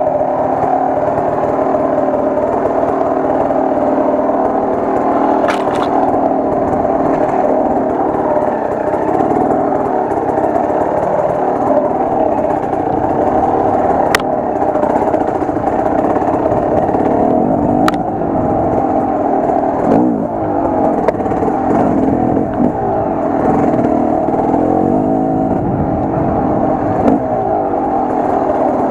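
Enduro motorcycle engine running on the trail, its revs rising and falling, with a few sharp clicks.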